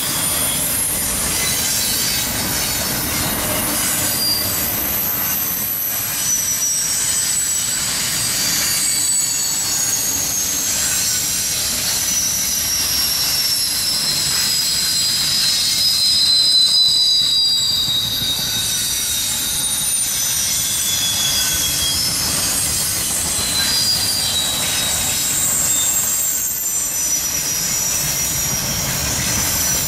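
Freight train cars rolling past, the wheels squealing against the rails: several high, wavering squeals that slide slowly in pitch over a steady rumble.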